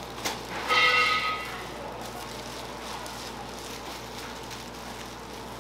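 A short horn honk of steady pitch about a second in, lasting under a second, preceded by a single click, over steady background noise.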